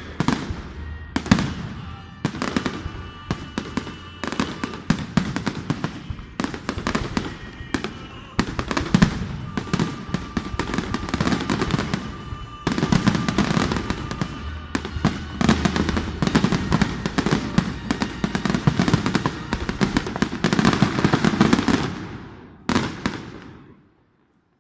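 Fireworks display: a rapid, continuous string of bangs and crackling bursts, growing denser and louder from about halfway in, then one last bang and a fade-out near the end.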